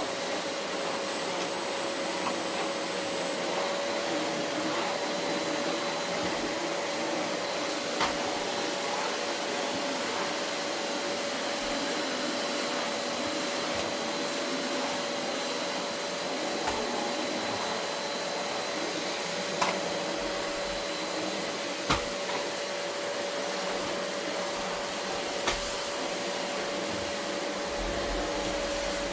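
Vacuum cleaner running steadily over carpet: an even motor hum with a high whine, broken by a few brief sharp clicks.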